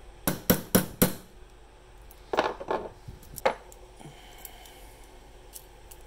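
Sharp metal-on-metal taps while the steel parts of a Victorinox Cadet pocket knife are worked apart: four quick strikes at about four a second, then a short clatter of clinks about halfway through and one more knock.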